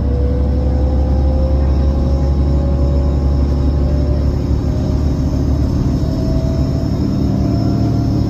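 Inside a 2008 New Flyer DE40LFA diesel-electric hybrid bus under way at speed: steady low rumble of its Cummins ISL diesel and road noise, with a whine from the Allison EP40 hybrid drive slowly rising in pitch as the bus gains speed.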